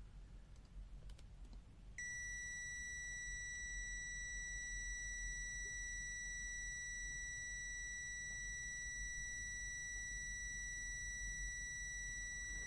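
Digital multimeter's continuity buzzer giving one steady, unbroken high beep that switches on sharply about two seconds in, after a few faint clicks, as the test leads rest on a low-value resistor below the meter's 50-ohm continuity threshold.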